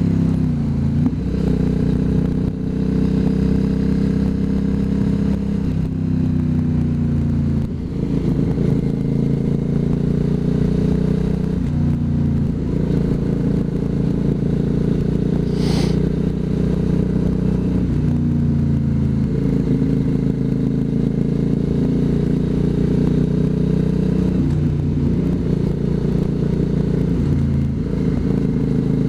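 Motorcycle engine heard from the rider's onboard camera at town speed, its note stepping up and down every few seconds with throttle and gear changes. A brief sharp high-pitched sound cuts in about halfway through.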